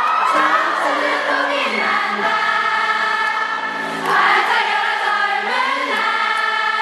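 A male vocalist singing live into a microphone at a concert, with many voices singing along in held notes.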